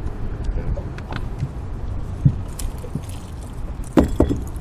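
Scattered knocks and clunks of handling gear aboard a fishing boat, with a sharp knock a little past halfway and two loud knocks close together near the end, over a steady low rumble.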